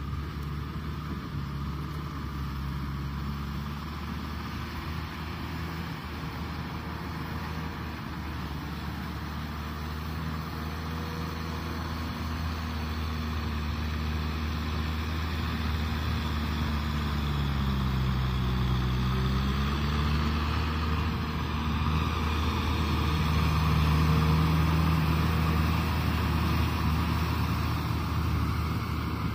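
Kubota M6040SU tractor's four-cylinder diesel engine running steadily under load as it drives a rotavator through flooded paddy mud. Its note sags and recovers about two-thirds of the way through, and the sound grows louder toward the end.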